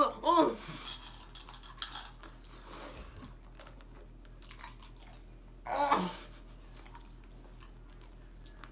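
Small clicks and crinkles of Warheads sour hard candies and their wrappers being handled and put into the mouth, with a short vocal sound at the start and a person's vocal sound falling in pitch about six seconds in.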